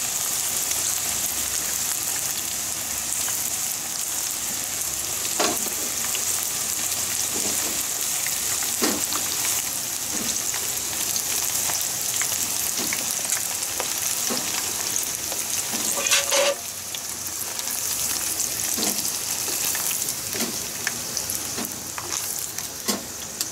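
Hot oil sizzling steadily as karaage pieces deep-fry in a pan, with occasional sharp clicks as chopsticks lift the pieces out. The frying gets quieter after about 16 seconds as the pan empties.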